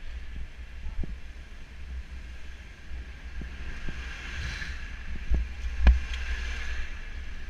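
Wind rumbling on a bike-mounted camera's microphone with scattered knocks from the road, while a refuse truck overtakes very close alongside, its hiss swelling in the middle. A sharp knock near the end is the loudest sound.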